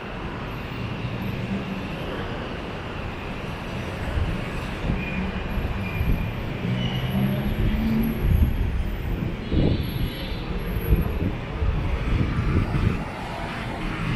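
Steady city traffic noise coming through an open-sided elevated station walkway, with a low rumble and a few low bumps past the middle.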